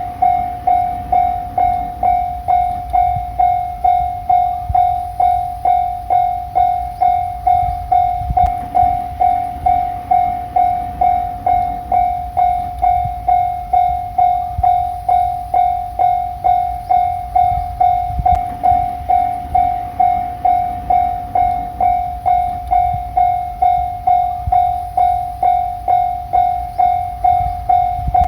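Japanese level-crossing alarm ringing, one pitched electronic ding repeated at an even, steady rhythm, over the low rumble and wheel clatter of a passing train.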